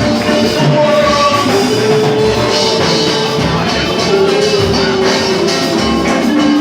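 A live band playing, with drums keeping a steady beat under a sung melody of long held notes.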